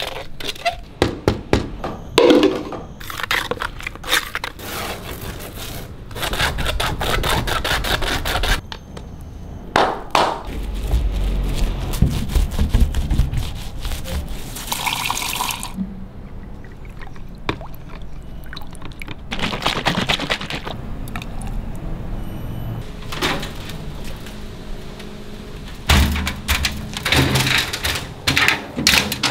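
Thick paint being scooped and dropped wet from a plastic tub into a bucket, along with many scrapes, wet slaps and knocks of hands and tools working it. Near the end there are heavier clattering knocks.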